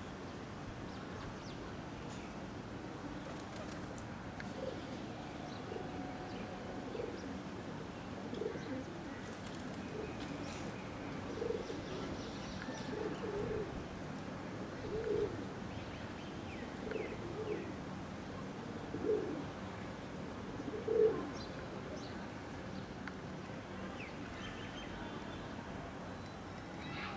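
Pigeons cooing: a series of short, low coos every second or two, the last two the loudest, over a steady background hiss.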